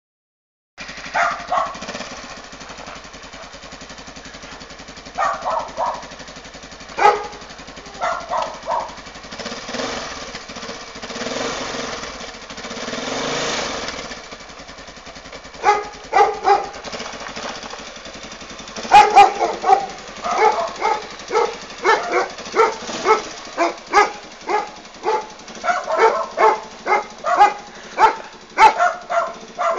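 Quad bike engine running steadily, with a dog barking repeatedly over it, in short clusters at first and then in a fast string of barks through the second half.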